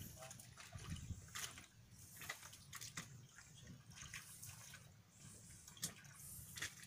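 Faint wet sounds of wading and hand-picking in shallow water and mud: drips and light splashes with scattered small irregular clicks.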